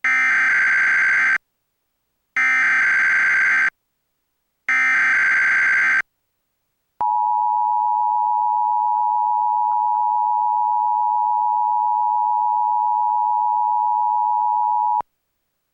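Emergency Alert System header for a Required Monthly Test: three bursts of SAME digital data, each about a second and a half long with a second's gap between them, then the two-tone attention signal (853 and 960 Hz) held steady for about eight seconds before it cuts off abruptly.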